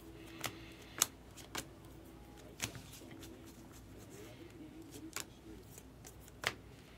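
A stack of 2024 Bowman baseball cards being flipped through one card at a time by hand, each card giving a sharp snap as it is pulled off and tucked to the back, about six or seven times at uneven intervals.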